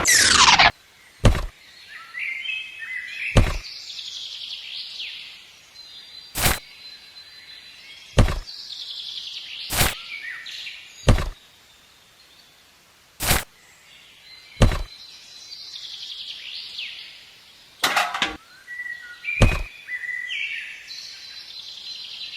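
Birds chirping and twittering, cut through by sharp knocks or clicks every one to three seconds, about a dozen in all. A short falling swish sounds right at the start.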